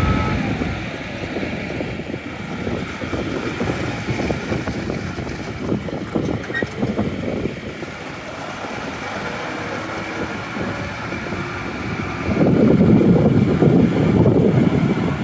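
Kubota tractor's diesel engine running steadily as it pulls a disc plow through wet mud, with wind buffeting the microphone. The sound gets louder about twelve seconds in.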